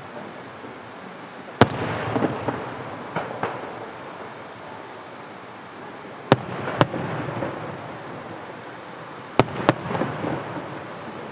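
Aerial firework shells bursting: five sharp bangs, the last four in two quick pairs, each followed by a rolling rumble and echo.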